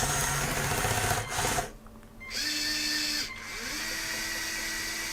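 LEGO Power Functions electric motors driving the tracked loader's tracks under remote control, running in three short bursts with a small motor whine that rises as each run starts, then holds steady.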